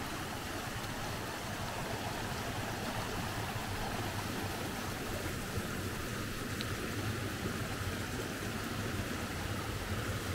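Rain-swollen creek running full of muddy water, a steady rush of flowing water.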